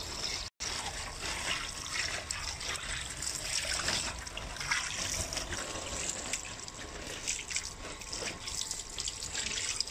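Water running from a hose and splashing over a gutted python carcass onto a tiled floor as hands rub and turn the meat to rinse it. The sound cuts out for an instant about half a second in.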